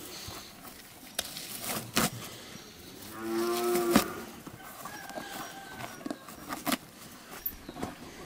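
A cow moos once, about a second long, around three seconds in. Short knocks and rustles of rope being pulled through a pack saddle come before and after it.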